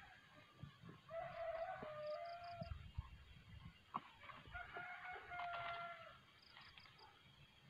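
A rooster crowing twice, each crow about a second and a half long with a stepped, held pitch, the second starting about three and a half seconds after the first.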